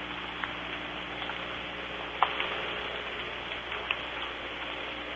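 Soft rain falling: a steady hiss with scattered single drop ticks, the sharpest about two seconds in.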